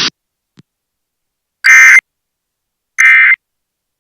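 Emergency Alert System end-of-message data bursts: short, buzzy two-tone digital squawks about a second apart, the code that closes an EAS test. Two bursts sound in the second half, after a hiss cuts off at the very start.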